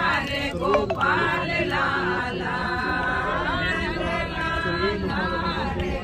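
A group of voices chanting Hindu puja mantras together in a sing-song unison, continuing without a break.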